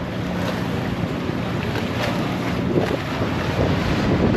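Wind noise on the microphone over choppy sea water, with a steady low ship's engine hum underneath.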